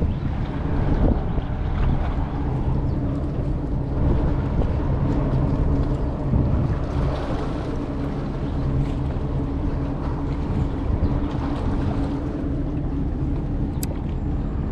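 A boat engine running with a steady low hum, with wind buffeting the microphone. There is a single sharp click near the end.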